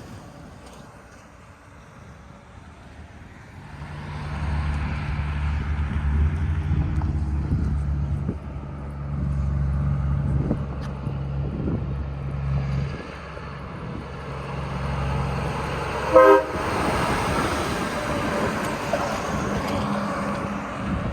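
Train going by: a low engine rumble builds and runs steadily, the horn gives one very short toot about sixteen seconds in, then the rushing noise of the train rolling past.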